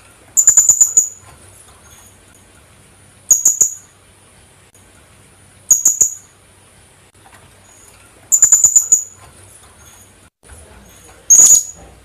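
Philippine hanging parrot (kulasisi) calling: five bursts of quick, sharp, high-pitched notes a few seconds apart, each burst under a second long.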